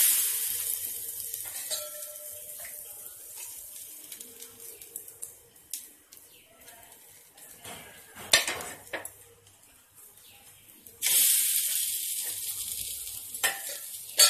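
Rounds of wet rice-flour dough sizzling as they are laid onto a hot tawa: a sudden hiss at the start and again about eleven seconds in, each fading slowly. A few knocks and clinks of utensils come in between.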